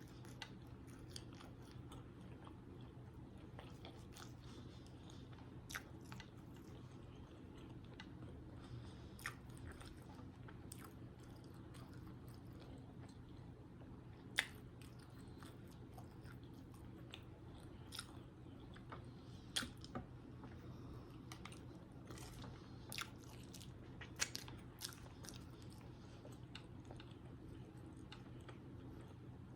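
Close-up chewing and mouth sounds of a person eating a sausage, egg and cheese biscuit, with sharp clicks scattered throughout over a low steady hum.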